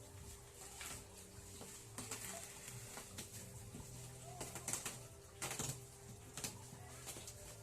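Faint rustling and scattered clicks from a parcel being handled and opened, over a low steady hum.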